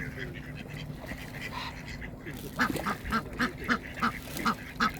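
Duck quacking in a rapid run of short calls, about four a second, starting a little past halfway.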